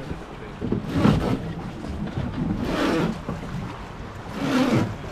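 Hand-rowed wooden river boat under way: regular oar strokes through the water, about one every 1.8 seconds, three of them here, each a swell of splashing noise.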